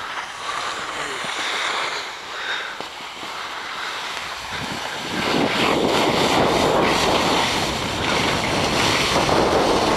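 Rushing wind on the microphone and skis sliding and scraping over packed snow during a downhill run. The noise gets much louder and deeper from about five seconds in as speed picks up.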